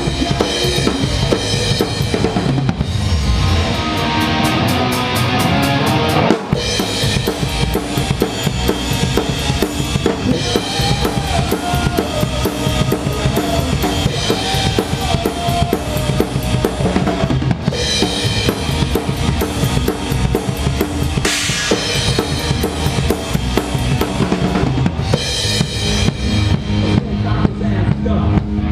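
A rock band playing live, with the drum kit loud and up front: bass drum and snare keeping a steady beat, rimshots and cymbals over the rest of the band.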